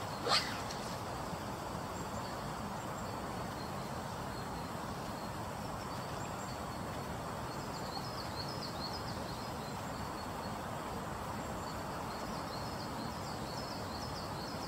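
Steady rush of a swollen river, with one quick downward-sweeping swish of a 15-foot two-handed spey rod and its line cutting the air on the forward cast, about a third of a second in. Faint small-bird chirps come later, in two spells.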